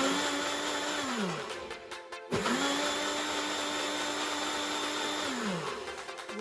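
Countertop blender blending a green smoothie of spinach, ginger and citrus with water, run in two pulses. The first is a short burst of about a second; the second is a longer run of about three seconds. Each time the motor winds up quickly to a steady pitch, then spins down.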